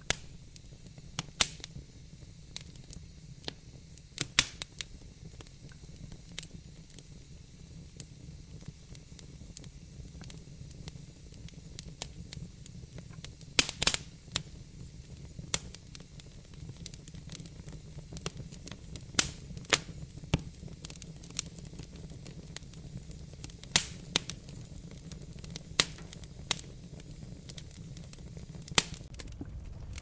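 Fireplace fire crackling: irregular sharp pops and snaps over a steady low rumble.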